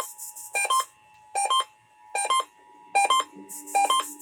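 Electronic alarm beeping during an Emergency Alert System test: a short warbling burst of beeps repeating about every three-quarters of a second. Under it runs a faint steady two-tone alert tone that fades out about three seconds in.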